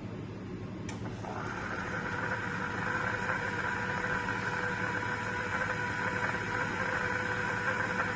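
Franke A800 coffee machine's pump running with a steady whine. It starts just after a click about a second in. It is dispensing a cappuccino while no milk is coming through, because the milk system has not yet been primed.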